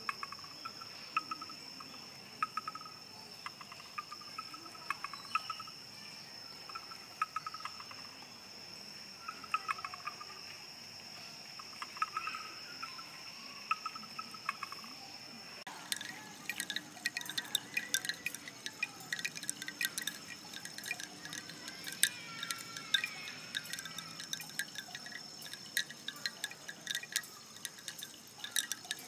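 Bamboo knocking and clicking, scattered hollow knocks at first, then a much denser clatter of sharp clicks and taps from about halfway. A steady high insect trill runs behind it.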